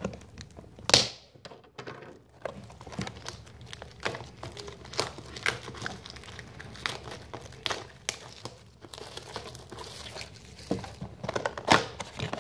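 A cardboard trading-card box being torn and pried open by hand: a run of sharp crackles, scrapes and rips of paperboard, loudest about a second in and again near the end.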